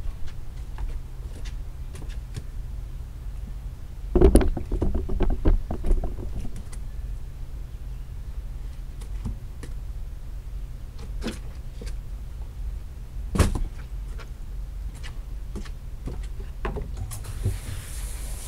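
A wet area rug being lifted and folded over on wooden deck boards: scattered knocks and thumps, a dense cluster of them about four seconds in and one sharp knock about thirteen seconds in, over a steady low hum. A hiss begins near the end.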